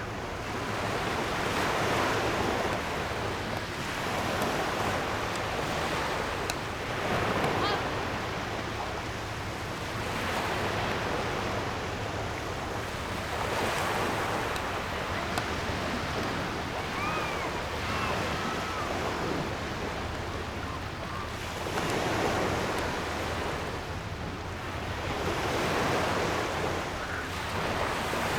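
Surf washing onto a beach in repeated swells a few seconds apart over a steady low rumble, with some wind on the microphone.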